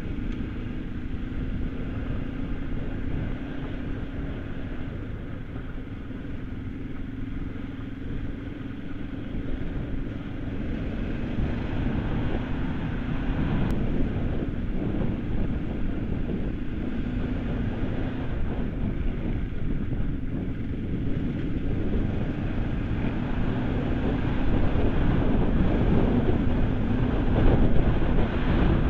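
Kawasaki KLE 500 parallel-twin engine running at a steady cruising pace on a loose gravel track, with wind rumble on the microphone and road noise from the stones. The sound grows louder in the second half.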